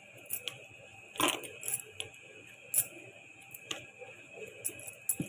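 Dry puffed rice and roasted peanuts rattling and clicking as they are packed into an airtight container: scattered small knocks at an uneven pace, a little louder about a second in and again near three seconds.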